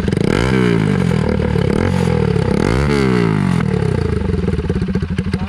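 Bajaj Pulsar NS200 single-cylinder engine running with its silencer removed, exhaust open through the bare bend pipe: revved twice, about two and a half seconds apart, then back to a loud, pulsing idle.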